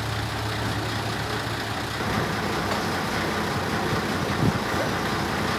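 Heavy vehicle engine idling steadily, with a short knock about four and a half seconds in.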